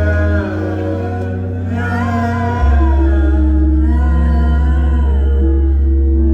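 Live concert music: a male singer's voice over very deep held bass notes. The bass thins out briefly just after the start and comes back heavily about two and a half seconds in.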